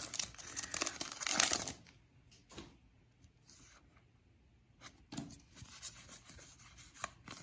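Foil trading-card booster pack wrapper crinkling and tearing for about two seconds. Then a lull, and from about five seconds in the soft clicks and rustle of a stack of cards being handled.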